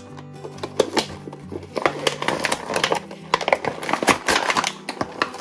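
Toy packaging being handled and opened: a run of crackles and clicks of plastic and cardboard, busier from about two seconds in, over background music.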